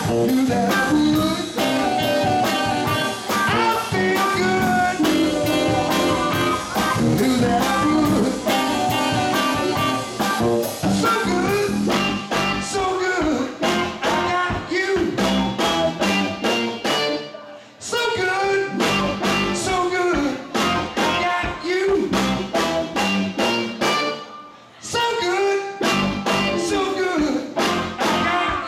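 A live funk band playing saxophone, electric guitar and drums over a steady drum beat. The band stops dead for a moment twice, just before 18 seconds and again around 24 seconds, then comes back in.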